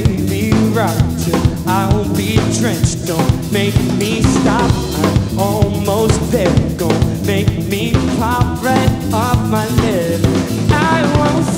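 Live rock band playing an instrumental stretch: a drum kit keeping a driving beat under bass guitar and electric guitar, with lead lines that bend and waver in pitch.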